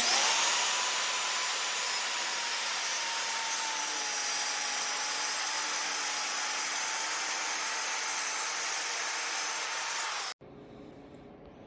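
Circular saw crosscutting a 1.5-inch-thick butcher block countertop: a steady motor whine under the loud rasp of the blade through the wood. It stops abruptly about ten seconds in.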